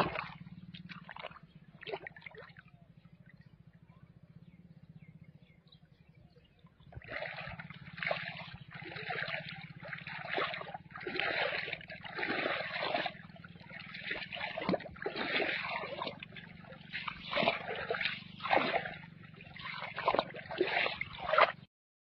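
Running water splashing and gurgling in uneven surges, starting suddenly about seven seconds in and cutting off just before the end, over a low steady hum. Before it, a quieter stretch opens with a sharp knock and a few faint clicks.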